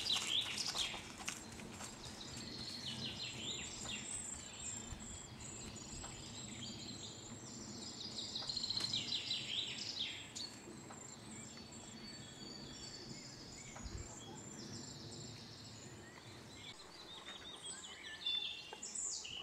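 Eurasian nuthatch calling in several fast trills of rapidly repeated high notes, loudest about eight to ten seconds in.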